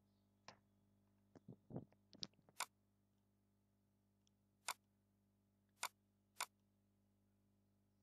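Computer mouse and keyboard clicks: a scatter of sharp single clicks, several close together in the first three seconds, then three more spaced about a second apart.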